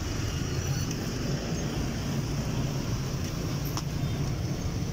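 Steady low rumble of street traffic and engines, with a single faint click a little under four seconds in.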